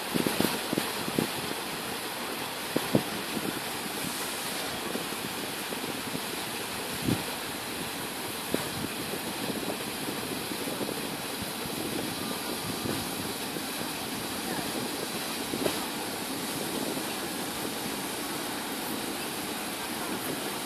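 Boat engines running steadily, heard as an even noise with no clear pitch, with a few short knocks in the first few seconds.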